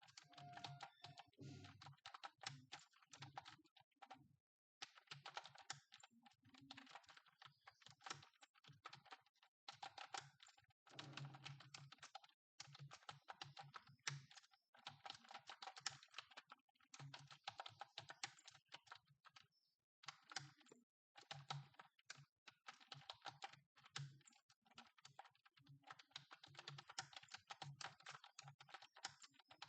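Computer keyboard being typed on fast and continuously, quiet key clicks in long runs broken by short pauses every few seconds.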